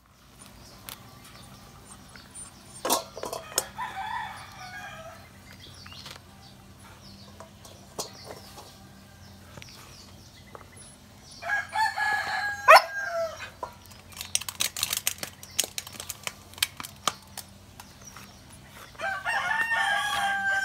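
A rooster crowing twice, about twelve seconds in and again near the end, each crow a drawn-out call that drops in pitch at its close. Scattered sharp clicks and taps come between the crows.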